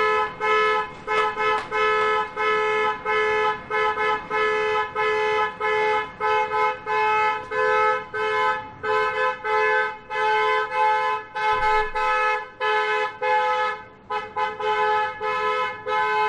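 A two-tone car horn honking over and over in short beeps, about two a second.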